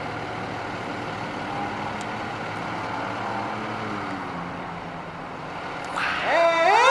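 Fire engine idling with a steady low rumble; about six seconds in, its siren starts to wind up, rising in pitch and getting louder.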